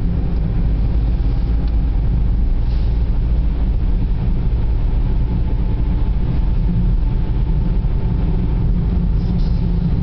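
Steady low drone of a car's engine and tyres heard from inside the cabin while driving along a snow-covered highway, with a faint steady whine running under it.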